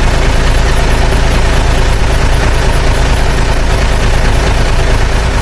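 A heavy vehicle engine running steadily: a loud, even rumble with no change in pitch.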